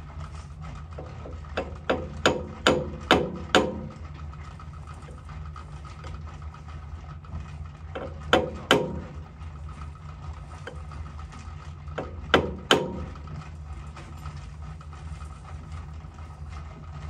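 Sharp metallic clicks and knocks from hands working the fittings of a small metal lathe: a quick run of about six a couple of seconds in, then a pair about halfway and another pair later, over a steady low machine hum.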